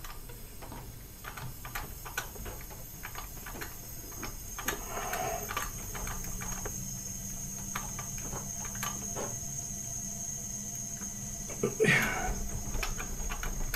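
Quiet workshop sounds: scattered light clicks and taps of tools and fittings. From about four seconds in there is a thin, steady, high hiss as compressed air feeds a leak-down tester on the RB26DETT's number two cylinder.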